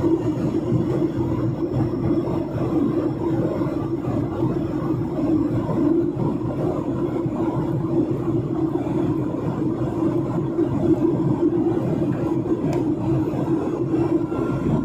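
Steady cabin noise of a Boeing 737-900ER in the climb, heard at a window seat: an even hum from its CFM56-7B turbofan engines mixed with the rush of airflow past the fuselage.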